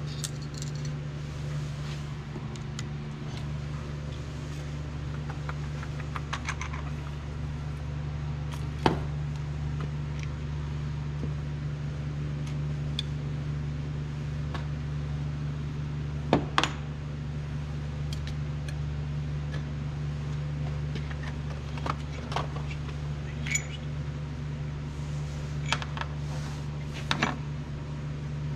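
Steady low mechanical hum with scattered sharp metallic clinks and taps from tools and engine parts being handled. The loudest clink comes about nine seconds in and a quick pair follows around sixteen seconds.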